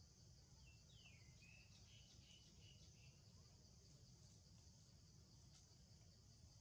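Near silence: a faint, steady high insect drone from the forest canopy, with a few short, faint whistles, one falling and the rest level, from about half a second to three seconds in.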